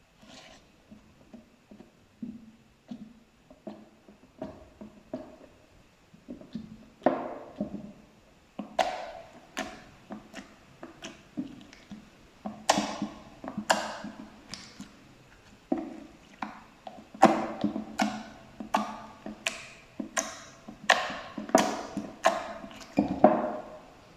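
Slime being squished, giving a run of sharp wet pops and clicks, sparse and soft at first, then louder and more frequent from about seven seconds in.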